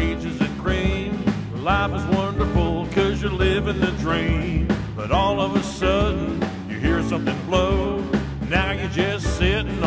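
Country song with a steady drum beat and bass under a bending lead melody.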